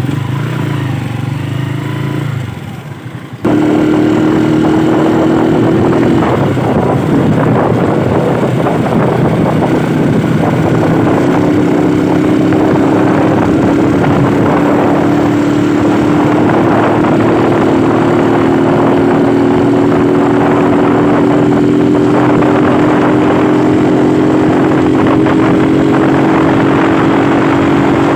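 Motorcycle engine running steadily while riding, with wind and road rush; its pitch creeps slowly upward through the second half. A quieter, lower engine sound in the first few seconds cuts off abruptly.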